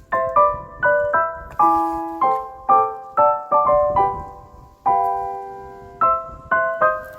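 Background piano music: a gentle melody of single struck notes, each decaying, with one longer held note about five seconds in.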